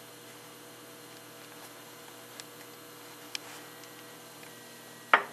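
Steady electrical hum with a few faint clicks of small parts being handled, and one sharper knock near the end.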